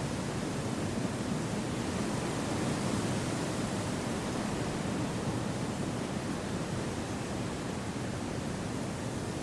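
Wind blowing through forest trees: a steady, even rush with no gusts, breaks or other sounds.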